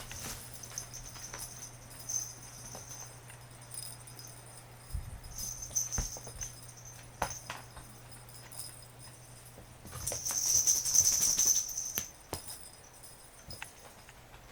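Cat toy with a small bell jingling in short spells as a cat paws at it, with a longer burst of jingling about ten seconds in, among light taps and clicks.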